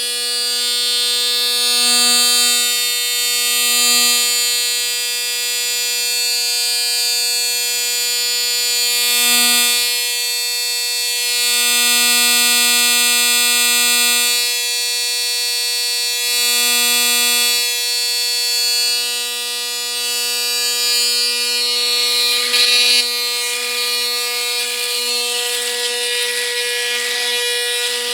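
Panasonic Arc 5 electric foil shaver running with a steady high-pitched buzz that swells in level several times. From about three-quarters of the way in, an irregular crackle of stubble being cut joins the buzz.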